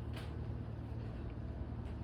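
Steady low background rumble, with a short hissing rustle just after the start and a couple of faint ticks later.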